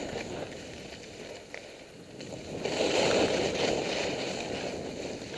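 Skis carving and scraping over packed snow on a steep piste: a steady hiss that grows louder a little past halfway through with a turn, then eases off.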